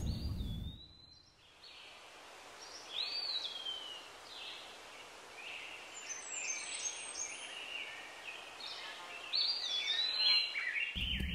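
Forest ambience from a sound library: birds chirping and singing in short whistled phrases over a faint hiss. It comes in after the reverberant tail of a cannon-like boom fades out in the first second. Near the end, a low rumbling noise starts suddenly.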